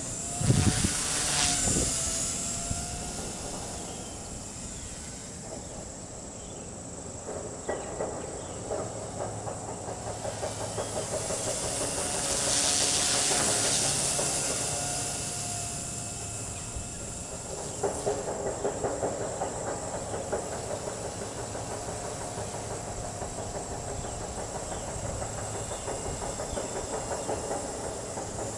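Blade 130 X micro RC helicopter in 3D flight: the brushless motor's high whine and the rapid chop of the rotor blades, shifting in pitch and loudness as it manoeuvres and loudest about halfway through. A brief low rumble comes at the very start.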